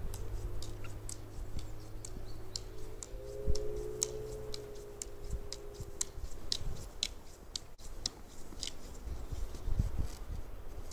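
Nordic walking poles and boots on crusted snow: a run of sharp clicks and crunches, about three a second, over a low rumble.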